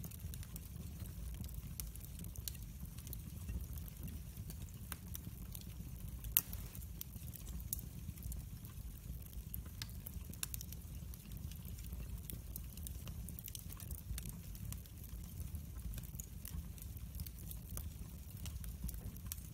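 Split wood logs burning in a fireplace, with scattered sharp crackles and pops over a low steady rumble. One pop about six seconds in is louder than the rest.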